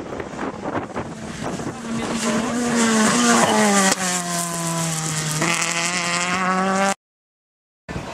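Ford Escort Mk2 rally car at speed, its engine note growing louder as it approaches and dropping in pitch as it passes close about four seconds in, then holding a steady high note. The sound cuts out for about a second near the end.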